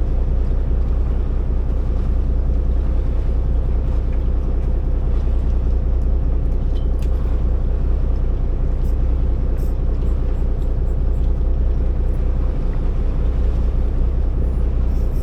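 Boat engine running steadily at an even pitch, with a deep hum.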